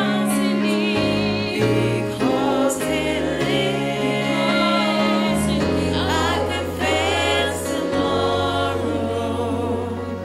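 Two women singing a gospel worship song into microphones, their voices wavering with vibrato, over electronic keyboard accompaniment with long held bass chords that change every second or two.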